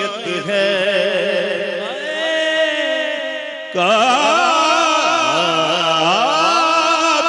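A man singing a Punjabi devotional song in praise of Ali (a manqabat) into a microphone. He draws out long, wavering notes with sliding ornaments, and a new, louder phrase begins about four seconds in.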